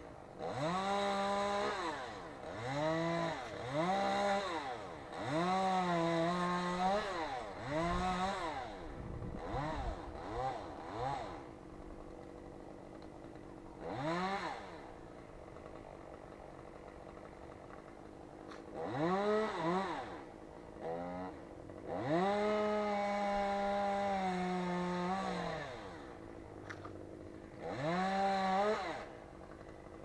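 Chainsaw revving up and down in repeated bursts of one to three seconds, with quieter stretches between, as limbs are cut from a spruce.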